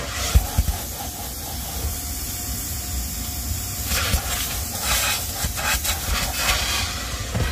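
Vacuum hose sucking air as it is worked over a car's floor carpet: a steady hiss that swells and eases as the nozzle is moved, with a couple of low knocks near the start.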